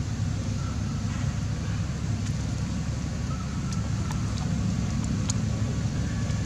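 Steady low rumble, with a few faint short clicks.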